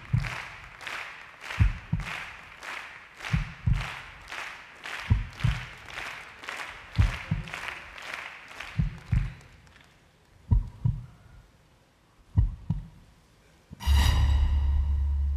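Suspense sound design: paired, heartbeat-like low thuds about every two seconds under a quick, even swishing pulse, which fades out about two-thirds of the way through. Near the end a loud, sustained low boom with a buzzing tone hits.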